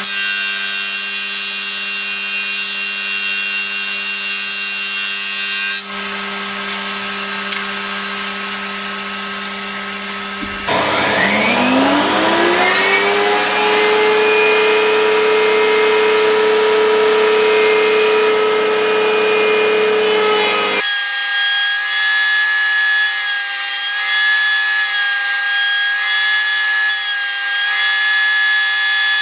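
Electric woodworking power tools running on wood in several separate passages. About ten seconds in, one tool starts up with a rising whine and settles to a steady high running note. The sound changes abruptly twice, at about six and about twenty-one seconds.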